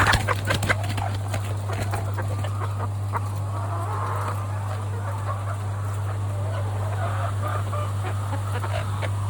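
A flock of chickens in a poultry house clucking and calling continuously over a steady low hum, with a few sharp clicks in the first second.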